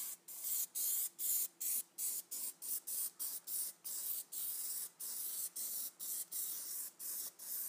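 Aerosol can of PlastiDip rubber coating spraying in rapid short bursts, about two to three a second, each a high hiss cut off by a brief gap, as a wet coat is laid onto a wheel spoke.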